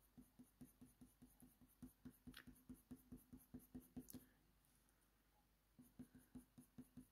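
Faint, quick strokes of a Faber-Castell Polychromos colour pencil on hot-press watercolour paper, about four or five short scratches a second, laying in small details. The strokes pause for about a second and a half past the middle, then start again.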